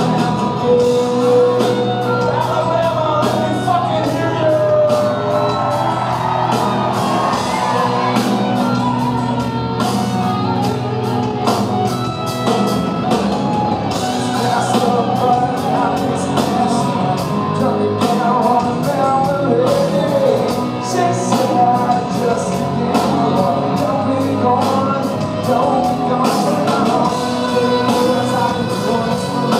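Rock band playing live: a male singer singing over electric guitars and drums, recorded from the crowd.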